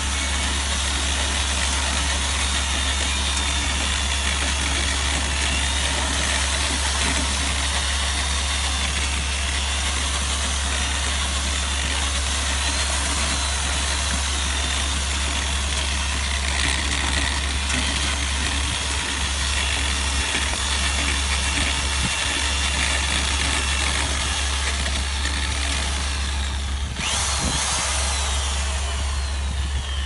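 Corded electric drill with a paddle mixer running steadily while churning wet cement slurry in a plastic bucket, a thin motor whine over a steady low hum. Near the end the whine slides down in pitch.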